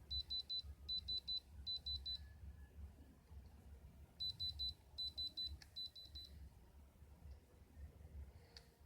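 Electronic beeper sounding short high-pitched beeps in quick clusters of three or four: three clusters, a pause of about two seconds, then three more.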